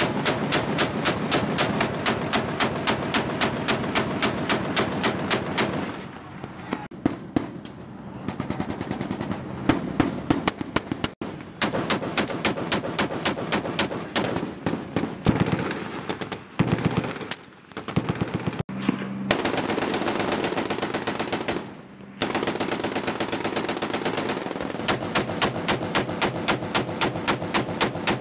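LAV-25's 25 mm M242 Bushmaster chain gun firing repeated bursts of single heavy shots, about three a second, broken by a few short pauses.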